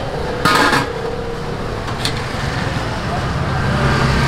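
Stainless steel steamer lid lifted off a pan of steaming tapioca balls, with a brief loud metallic clank about half a second in and a smaller click near two seconds, over a steady low rumble and background chatter.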